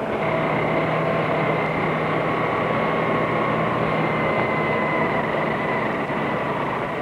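Steady industrial machine noise, a rushing hiss with several held tones running through it, easing off near the end.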